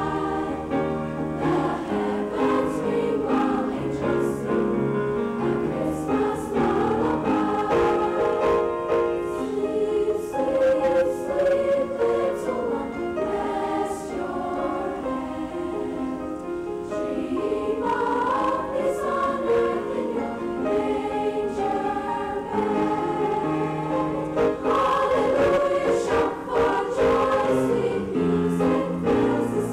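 Junior high school choir singing a sustained, flowing piece in several voice parts.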